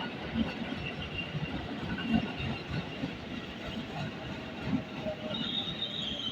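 Tokyo Metro 6000-series electric commuter train running through the station, its wheels knocking irregularly over the rail joints over a steady rumble. A faint high squeal comes in near the end.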